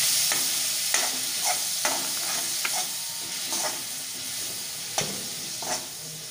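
A masala of tomato and ground spices with a splash of water sizzling in mustard oil in a metal kadai, being fried down. A steel spatula scrapes and knocks against the pan about once a second as it is stirred, and the sizzle slowly quietens.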